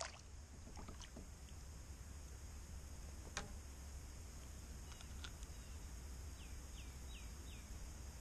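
A hooked bass splashing briefly at the surface as it is lifted from the water, then quiet ambience on the water with a steady low rumble, a few light clicks and knocks from handling the fish in the canoe, and four quick falling chirps about two thirds of the way through.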